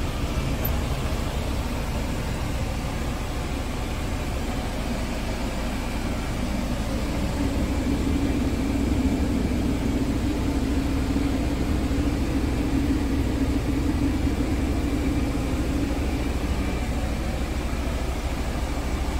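Scania R tractor unit's diesel engine idling steadily, heard from inside the cab as a constant low rumble. A steady hum joins in about a third of the way through and fades near the end.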